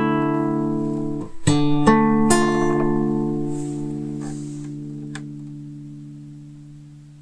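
Classical guitar playing the closing chords of a song: a held chord, three more plucked chords about a second and a half to two and a half seconds in, then the final chord left to ring and slowly fade away.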